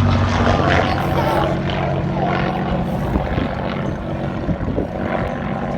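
Propeller aircraft engine running, a steady low drone that eases off slightly over the few seconds.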